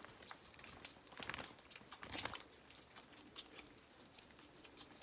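Faint irregular rustling and soft clicks of lambs moving in straw bedding while feeding from a bottle, with a couple of louder rustles about a second and two seconds in.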